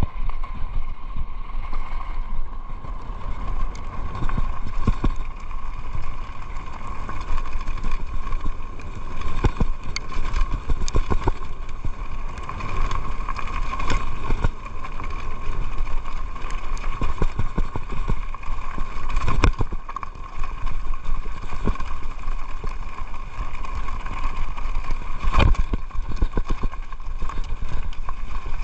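Electric mountain bike rolling fast down a loose gravel and rock track: tyres crunching over stones, the bike rattling, and sharp knocks as it hits rocks, over a steady high whine.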